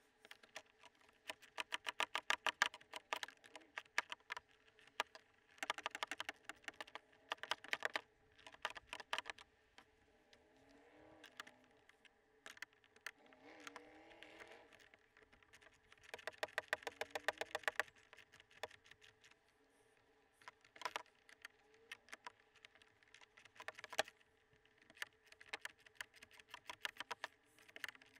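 Ratchet wrench clicking in quick bursts of one to two seconds, repeated several times with short pauses, while tightening the nuts on the pins that hold MaxTrax boards to a plastic roof case.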